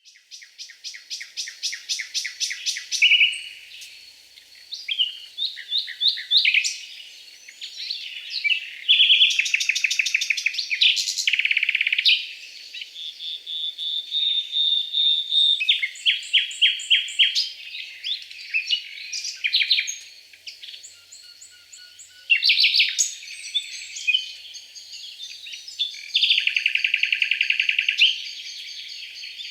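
Songbirds singing, with rapid trills, fast runs of repeated notes and short whistled phrases overlapping one another. There is no low sound beneath the song.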